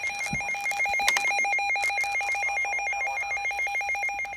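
Electronic ringing tone, a higher pitch warbling rapidly back and forth between two close notes over a steady lower tone, held at a steady level.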